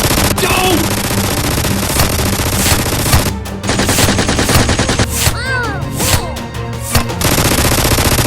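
Rapid automatic gunfire in long bursts, with short breaks about three seconds in and near seven seconds, over background music with a steady bass line.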